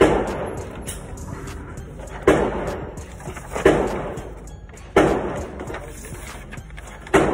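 Five gunshots at an indoor range, irregularly spaced one to two seconds apart, each booming and echoing off the range walls for about a second before dying away.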